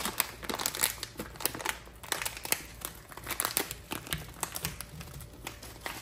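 Plastic jasmine rice pouch crinkling as it is handled and folded, in a quick irregular run of crackles.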